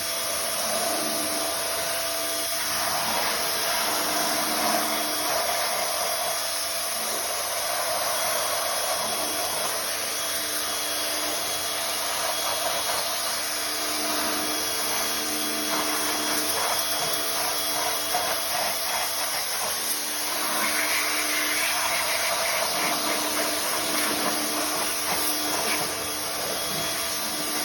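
Pressure washer spraying a car's wheel rim, a steady loud rush of water noise with a constant machine hum under it.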